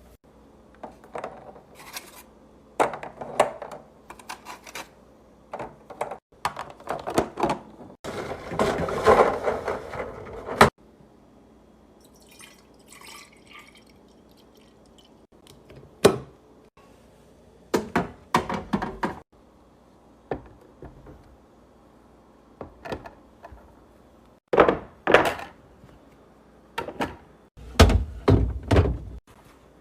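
Containers and food packages being handled and set down in a fridge, a string of separate knocks and clatters. About eight seconds in there is a rushing stretch of about two and a half seconds.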